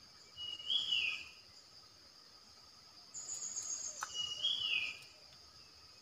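Stripe-throated bulbul decoy bird singing two short whistled phrases that fall in pitch, one just under a second in and a longer one from about three seconds in, over a steady high insect drone. A single sharp click comes midway through the second phrase.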